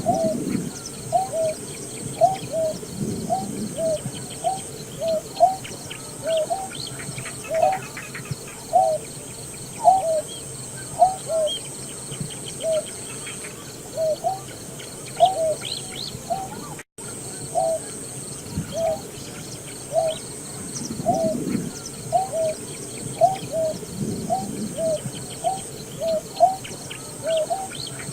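Greater painted-snipe calling: a long, even series of short, low hooting notes, about three every two seconds, with a brief dropout about two-thirds of the way through.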